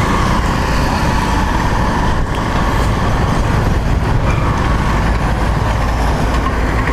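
Honda XRE 190's single-cylinder engine running steadily as the motorcycle is ridden, mixed with wind rushing over the microphone.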